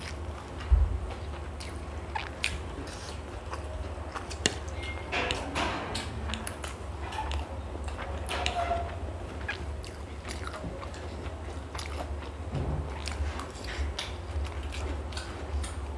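Two people eating: biting into and chewing a soft burger and forkfuls of chowmein noodles, with scattered small clicks and one louder thump about a second in. A steady low hum runs underneath.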